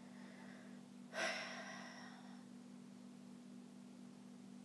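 A woman sighing once, a breathy exhale about a second in that fades out over roughly a second, over a steady low room hum.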